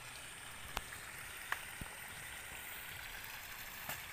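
Irrigation water trickling steadily over an earthen paddy bank into a flooded rice field, with a few faint clicks.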